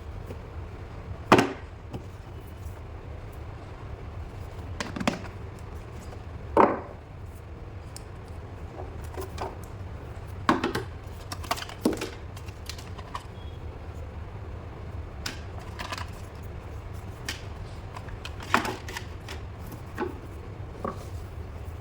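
Scattered knocks, taps and scrapes from handling a smartphone's retail box and its packaging while it is unboxed, over a steady low hum. The sharpest knocks come about a second in and near seven seconds.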